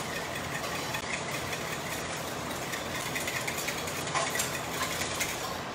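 Wire whisk beating eggs and melted butter in a glass bowl: a steady, rapid rattle of the tines against the glass.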